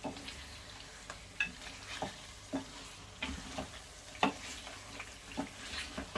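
Spoon stirring a chicken curry in a frying pan, knocking and scraping against the pan at an uneven pace of about two strokes a second, over a steady sizzle as the spices cook in the oil.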